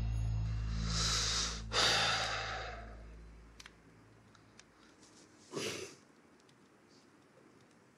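A man lying awake in bed sighs heavily: a long, breathy exhale about a second in and another short sigh about five and a half seconds in. Soft background score music fades out during the first few seconds.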